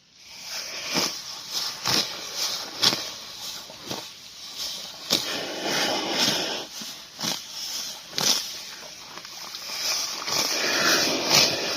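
Water buffalo grazing: grass being torn and chewed in repeated crisp crunches, about two a second.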